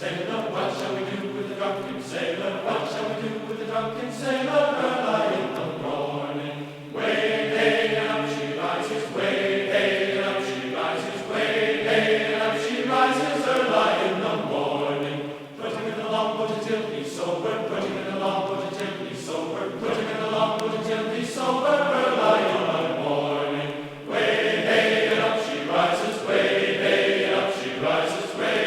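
Background music of choral, chant-like voices singing long held notes, with the chords changing every few seconds.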